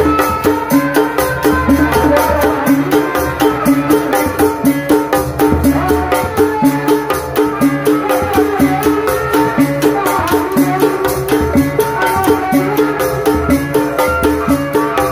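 Live Sundanese tanji ensemble playing kuda renggong music: deep drums and a fast, steady run of high percussion strokes under a stepping melody.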